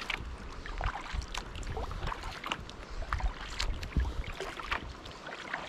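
Kayak paddling on open water: irregular small splashes and drips from the paddle blades and water against the hull, with wind buffeting the microphone.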